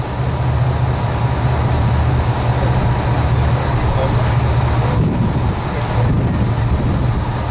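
Tour boat's engine running with a steady low drone, under a constant rush of wind and water noise on the open deck.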